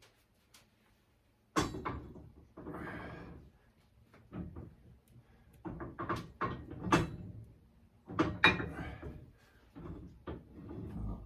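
Shop parts and press blocks being handled and set in place: a string of irregular sharp knocks and clunks with short scraping between them, starting about a second and a half in.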